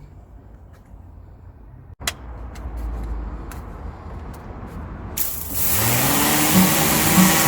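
A few light clicks, then about five seconds in a Kärcher K7 electric pressure washer starts spraying: a loud, steady hiss of the water jet, with the motor's hum rising in pitch and settling as it comes up to pressure.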